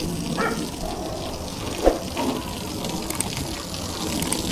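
Water jetting from a garden hose spray nozzle and splashing onto a car's side window and door, a steady rushing spray. A short thump about two seconds in.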